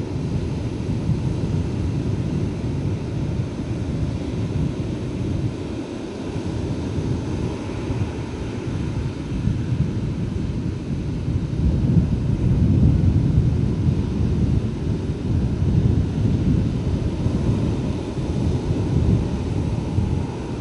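Sea surf with wind buffeting the microphone: a steady low, rough rush that swells louder about halfway through.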